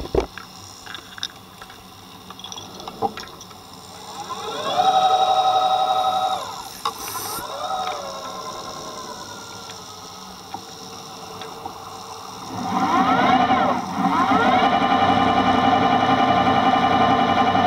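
Electric motor of a diver propulsion vehicle (underwater scooter) whining as it spins up, heard underwater. It runs twice: a short burst about four seconds in, then again from about twelve and a half seconds, each time rising in pitch and then holding at a steady pitch.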